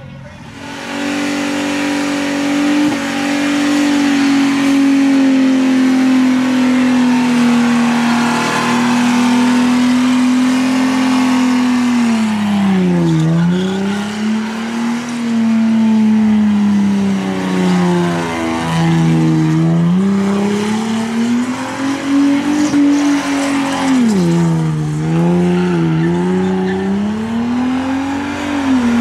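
Holden VT Commodore's 3.8-litre V6 held at high revs during a burnout, rear tyres spinning and screeching against the pad. In the second half the revs drop briefly and climb back three times.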